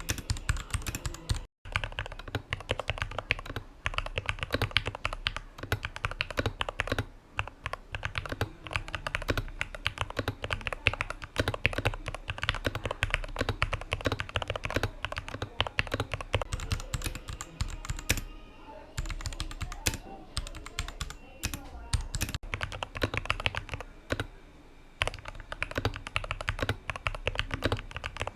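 Modded Royal Kludge RK61 mechanical keyboard, fitted with lubed Gateron Milky Yellow Pro linear switches, EVA and PE foam and tape mods, being typed on fast in a steady stream of keystrokes.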